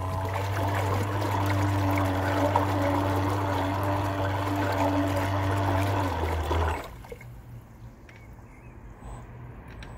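Brushed RC motor spinning a fan blade underwater at full throttle: a steady motor hum under the churning, bubbling water it stirs up. It stops about seven seconds in.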